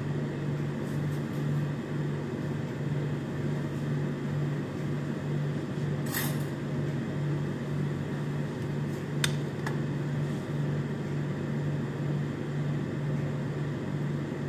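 Steady low mechanical hum with a gentle, regular pulse, broken by a few sharp clicks about six seconds in and twice around nine to ten seconds in.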